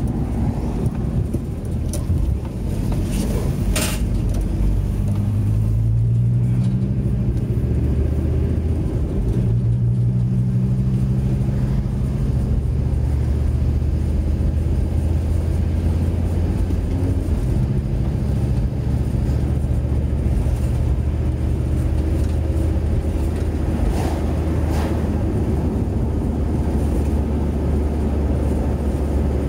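Car engine and road noise heard from inside the cabin while driving. The engine note rises a few times as the car pulls away and gathers speed, then settles into a steady drone at cruising speed.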